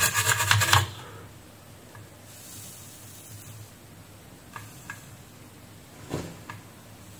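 A brush scrubbing a circuit board in rapid strokes, stopping about a second in. Then low hiss with a few faint ticks and a soft knock about six seconds in, while a soldering iron touches up the joints.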